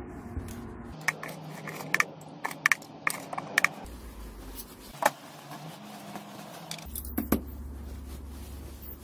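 Small metal parts of a disassembled angle grinder clinking against each other as they are handled and set down: a quick run of light, ringing metallic clinks over the first few seconds, then a few single knocks.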